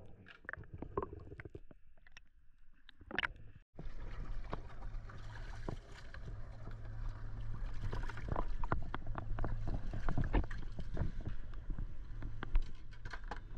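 Boat running under way: a steady low engine hum with rushing water and scattered knocks. It cuts in abruptly about four seconds in, after a quieter stretch with a few faint clicks.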